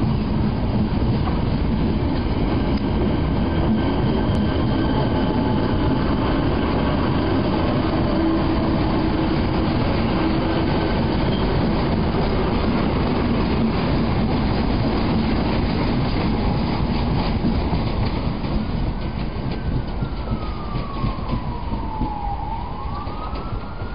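Electric passenger trains standing at a station platform: a steady, loud hum and drone of their equipment. Near the end a whining tone glides up, down and up again.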